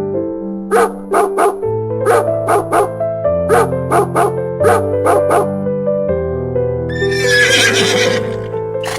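A horse whinnying once, a long wavering call about seven seconds in, over a children's backing tune. Before it come four quick groups of three short, sharp sounds.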